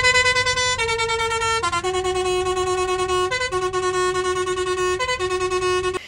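A musical vehicle horn playing a tune: long held notes that jump between a few pitches, with short higher notes between them, ending abruptly.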